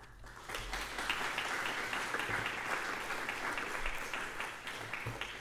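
Audience applauding at the end of a lecture. The clapping builds about half a second in and starts to die away near the end.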